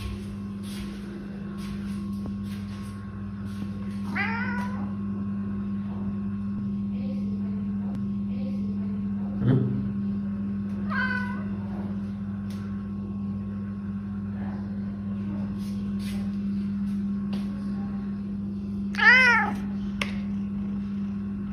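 A domestic cat meowing three times, short arching calls several seconds apart, the last the loudest, over a steady low hum. A single sharp knock comes about halfway through.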